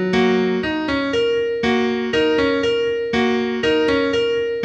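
Gentle background piano music, single notes struck about twice a second and left to ring.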